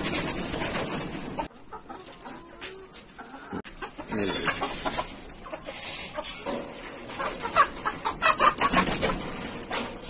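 Chickens clucking in a coop, with a burst of louder, quick calls near the end. A rustling noise fills the first second and a half, then stops.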